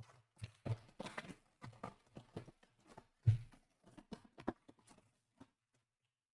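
Trading cards and packs being handled on a table: an irregular run of light taps, knocks and brief rustles. The loudest thump comes a little over three seconds in.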